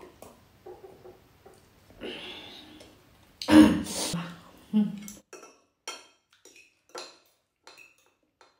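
Fork and spoon clicking and scraping against a ceramic plate of noodles: a string of separate sharp clicks, several with a short ring. About three and a half seconds in comes the loudest sound, a short throaty vocal noise from the eater.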